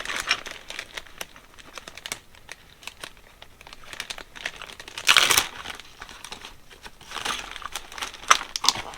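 Hands working on a motorcycle carburetor on a bench, fitting its slide back in: small metal clicks and taps with short bursts of rustling handling noise, the loudest about five seconds in.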